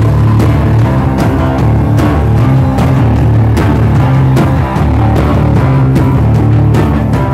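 Live rock music from a guitar-and-drums duo: a heavy, low guitar riff over steady drum hits.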